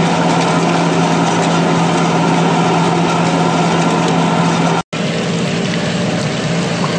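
Large lathe running steadily as a trepanning tool cuts through Inconel 718 under flood coolant: a continuous mechanical drone with a steady hum, in the final stage of the cut just before breakthrough. The sound drops out for an instant about five seconds in.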